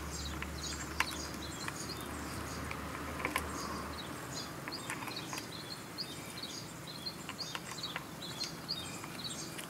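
Small birds chirping over and over in the background, with a few light clicks about one and three and a half seconds in. A low hum stops about four seconds in.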